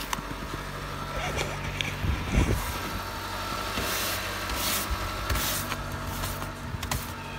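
Snow brush sweeping snow off a car's hood and windshield in short hissing strokes, over a steady low hum. A brief low rumble comes about two seconds in.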